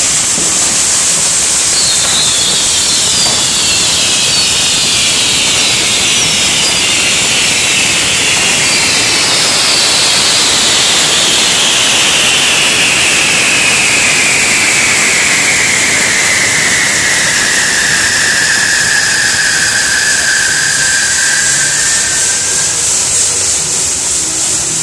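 Ground fireworks, Catherine wheels and spark fountains on a frame, firing with a loud continuous hiss. Over it, whistling tones slide slowly down in pitch, a shorter one in the first few seconds and a long one through the middle.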